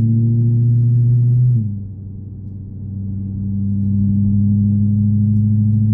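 BMW M3 V8 with an upgraded exhaust, a deep steady drone with a clear pitch: the vibration the owner complains of, which the BMW dealer could not trace. About a second and a half in it falls away sharply, then swells back to its steady level.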